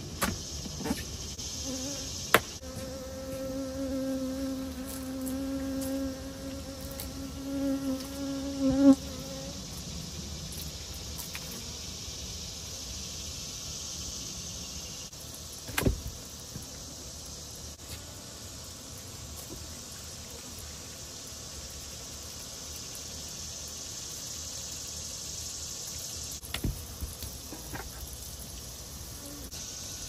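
Defensive honey bees buzzing. A few seconds in, one bee buzzes close by for about six seconds with a steady hum, and a few sharp knocks come through.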